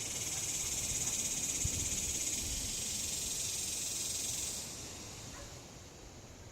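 A cicada's steady, high buzzing hiss that holds for about five seconds, then fades out.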